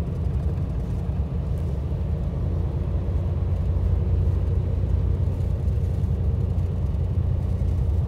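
Steady low rumble of a highway coach's engine, heard from inside the passenger cabin.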